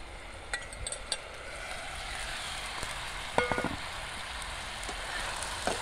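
Chiton curry sizzling and bubbling in a metal pan over a wood fire, the hiss slowly growing louder. There are a few light clicks in the first second, and a short metallic clank of a pot lid about three and a half seconds in.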